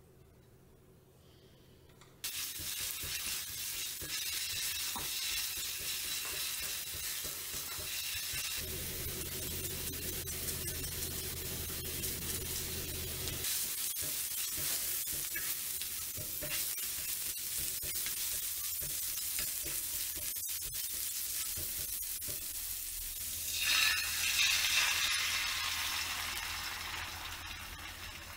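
Oil and chopped bits of food sizzling in a ceramic-coated griddle pan, stirred with a silicone spatula; the sizzle starts suddenly about two seconds in. Near the end beaten egg is poured into the hot pan and the sizzle grows louder.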